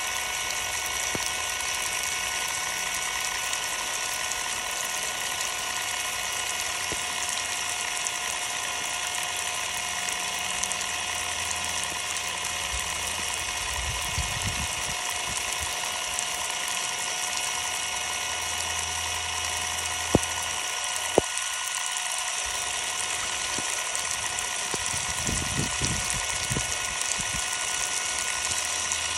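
Ryobi cordless impact driver's electric motor running steadily under a hiss of water spray, the tool still working with its uncovered battery soaked. Two sharp clicks come about two-thirds of the way through.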